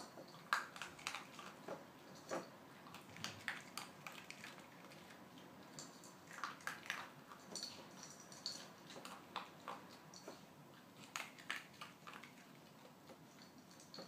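Faint, irregular small wet clicks and smacks of a kitten licking and grooming its fur.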